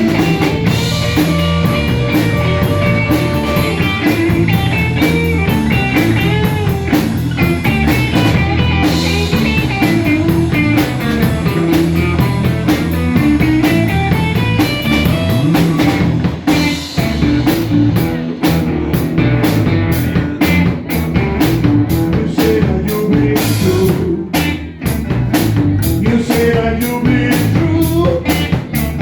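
Live band of guitar, bass guitar and drum kit playing a rock-and-roll groove. Bent guitar notes ring over a steady bass and drum beat, and about halfway through the cymbal strokes come through more plainly.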